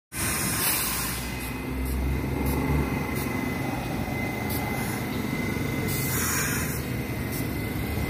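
R68 New York subway train running along elevated steel track as it moves out, a steady rumble with a thin, steady high tone.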